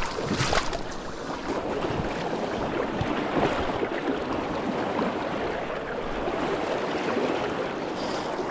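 Fast river current rushing steadily over a rocky bed, heard close up.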